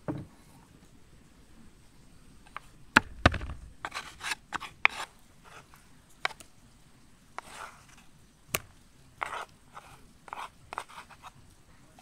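Wooden spoon scraping thick, sticky paste out of a wooden bowl and knocking against the bowl rims, in short scrapes with a few sharp knocks.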